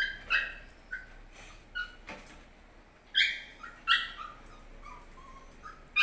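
An animal's short, high-pitched yips, about ten in six seconds, irregularly spaced and some in quick pairs, the loudest a little past the middle and at the end.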